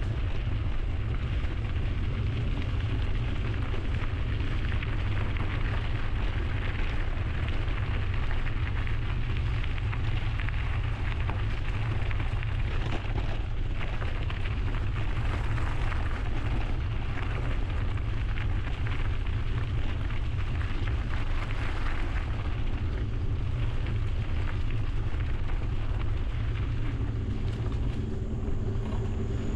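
Wind buffeting a GoPro Hero 11's microphone while riding a mountain bike: a steady low rumble under an even rushing noise from the moving bike and its tyres on the trail.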